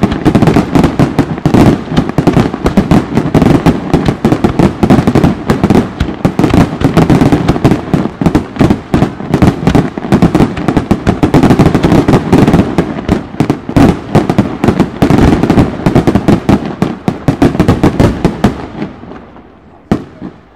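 Aerial fireworks firing a rapid barrage: many bangs a second run together into a continuous crackle. The barrage thins and dies away near the end, with one last single bang.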